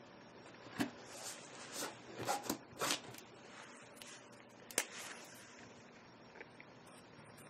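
Plastic clicks and rustles of Prismacolor art markers being picked out and handled: about half a dozen sharp clicks with short scrapes over the first five seconds, then the hand settles to colour.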